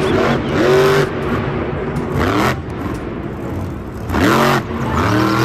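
Blue Thunder monster truck's engine running loud and revving up twice, with rising sweeps about a second in and again near the end.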